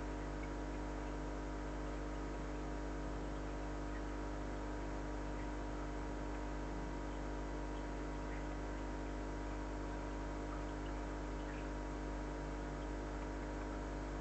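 Steady electrical hum with several fixed tones over a light hiss, from aquarium equipment running, with a few faint ticks.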